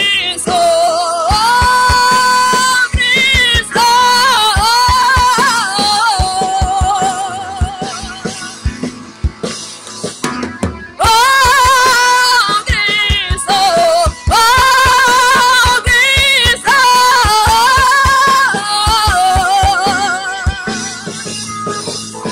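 A woman singing long held notes with vibrato into a microphone over a live worship band of drum kit, electric bass, keyboard and guitar. The music softens for a couple of seconds near the middle, then the singing comes back in loud.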